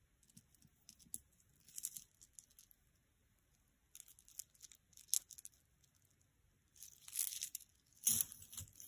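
Faint clinking and rustling of a metal chain necklace with acrylic beads being handled, its links and clasp moving against each other and the fingers, in scattered short bursts; the loudest rustle comes near the end as it goes down onto the cloth.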